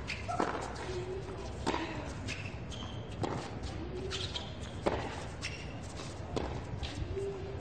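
Tennis ball struck back and forth in a baseline rally: five crisp racket hits about a second and a half apart, with players' short grunts on several of the strokes.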